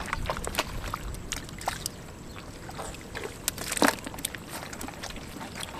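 Hands squelching and splashing through wet mud and shallow water while feeling for catfish: a scatter of small wet splats and clicks, with one louder splat a little before four seconds in.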